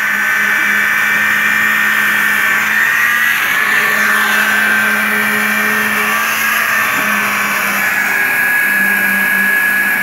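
Engine of construction-site machinery running steadily at a constant speed, a low hum with a high whine over it.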